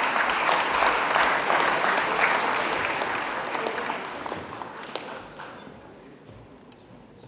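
Audience applauding to welcome a speaker: loud at first, then dying away over the last few seconds.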